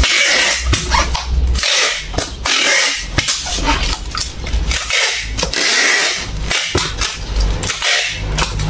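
Large cardboard box being closed and sealed by hand: the flaps scrape and rustle as they are pressed down, and packing tape is handled, in loud, scratchy, irregular bursts.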